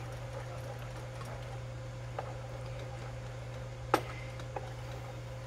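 Black plastic slotted spoon stirring thick cream cheese sauce in a metal saucepan. It gives a few light clicks against the pan, the sharpest about four seconds in, over a steady low hum.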